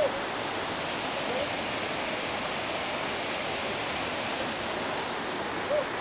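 Steady rushing noise of a waterfall. A voice calls out briefly at the start and again near the end.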